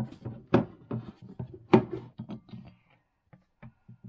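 Clicks and knocks of a plastic lid being pulled off a glass bowl and the bowl handled on a countertop, the loudest knock a little before two seconds in, dying away after about three seconds.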